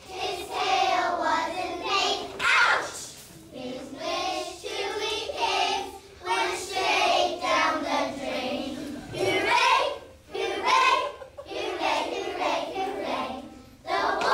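A group of kindergarten children singing a song together in chorus, in phrases with short breaks between them.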